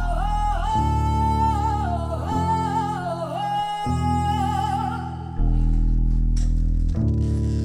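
A woman singing a winding, ornamented melody over deep plucked notes from an upright bass, each bass note held for a second or so. About five seconds in the singing stops and the bass carries on alone.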